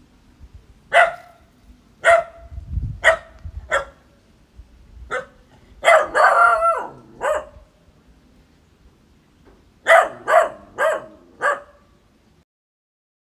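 Medium-sized dog barking: single sharp barks about a second apart, a longer drawn-out bark near the middle, then a quick run of four barks before it stops.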